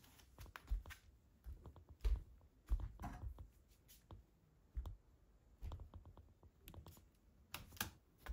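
Soft, irregular footsteps on a wooden floor and tatami, with scattered clicks and rustles from handling.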